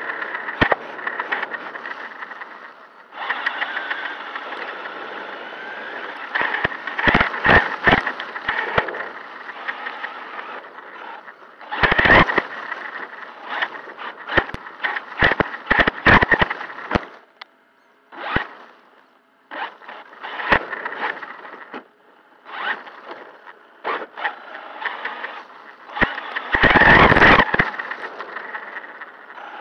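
Onboard sound of a Traxxas Sledge RC monster truck driving over pavement: the brushless electric motor and drivetrain whine while the tyres rumble, and the chassis and camera mount clatter and knock over bumps. It stops briefly a couple of times, going nearly quiet before pulling away again.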